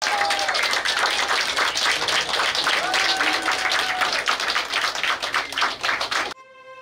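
Crowd clapping and cheering, with a few voices whooping over the applause. Just after six seconds it cuts off suddenly and music starts with held notes.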